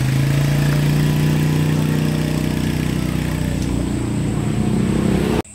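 Engine of a motor vehicle on the adjacent road, running steadily and loudly close by with an even engine note. It cuts off suddenly near the end.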